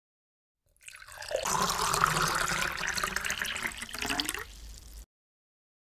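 Milk being poured in a thin stream into a metal pot of milk, a steady splashing pour. It starts about a second in and cuts off abruptly about a second before the end.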